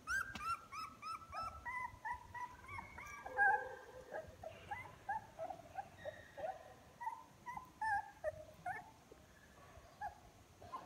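A litter of young puppies, eyes just opening, whimpering and squeaking: many short high-pitched cries in quick succession, several pups at once, thinning out near the end.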